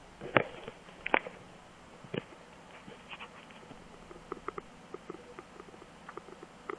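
Handling noise as the camera is picked up and turned: three sharp knocks and scrapes in the first couple of seconds, the loudest about half a second in, then a scatter of lighter clicks.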